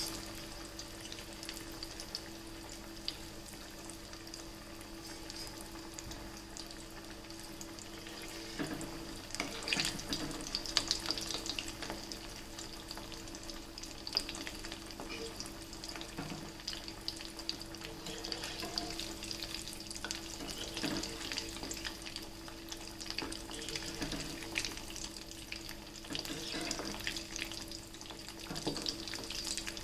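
Dhekhra dumplings deep-frying in hot oil in a kadai: a steady sizzle full of fine crackles. A spatula moves through the oil now and then, with a few louder clicks about ten seconds in.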